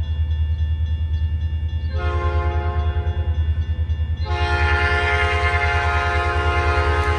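Air horn of an approaching EMD SD40-2 freight locomotive sounding for a grade crossing. One blast begins about two seconds in and runs straight into a louder, longer blast from about four seconds in that carries on past the end, over a steady low rumble.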